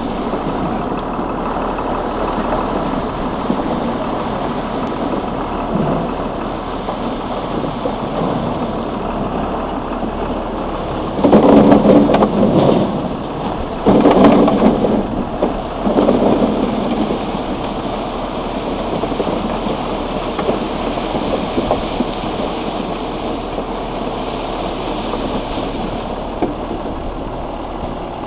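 Onions tumbling down a steel chute and dropping into plastic crates, a continuous rattling rush over a running machine. Two louder surges come a little before and just after the middle.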